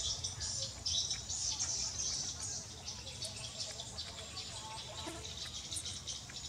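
Steady high-pitched chirping in the background, coming and going in short stretches, over a low rumble.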